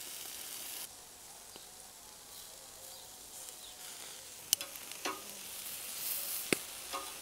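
Shashlik sizzling on a barbecue grill, a steady hiss, with a few sharp clicks of metal tongs against the grill rack in the second half.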